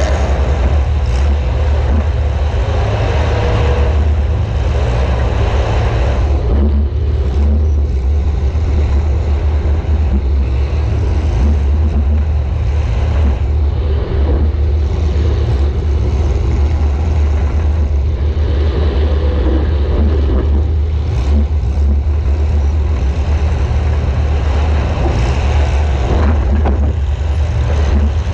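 A compact demolition derby car's engine running hard, a loud, steady low drone, with a few sharp knocks scattered through it.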